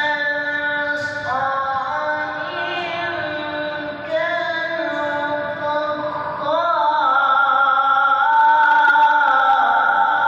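A solo voice chanting a melodic Quran recitation (tilawat), holding long notes and sliding and ornamenting the pitch between them. It grows louder about six seconds in.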